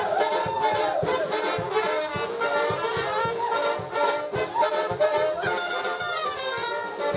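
German-style brass band playing live: trumpets and trombones carry a melody over a steady beat.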